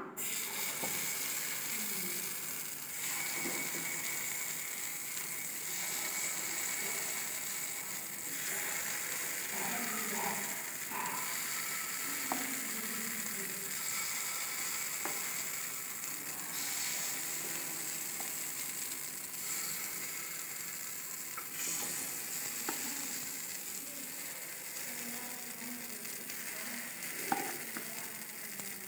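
Batter sizzling steadily in the hot, oiled cups of a kuzhi paniyaram pan as spoonfuls of idli-batter mix are dropped in. A few faint clicks of the spoon against the pan are heard.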